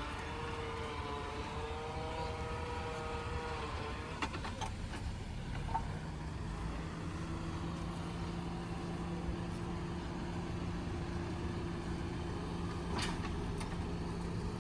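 Suzuki Jimny's 1.5-litre four-cylinder petrol engine running as the car drives over an off-road obstacle. Its note wavers for the first few seconds, then settles into a steady drone, over a low rumble. A few sharp knocks come about four seconds in and again near the end.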